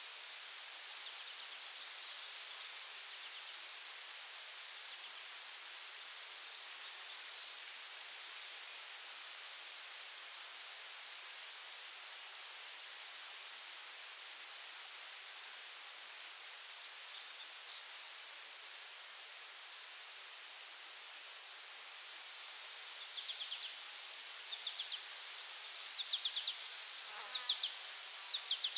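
Forest insects: a steady high-pitched drone with runs of rapid, evenly pulsed cricket chirping over a soft hiss. Near the end a bird gives several short, sharp descending chirps.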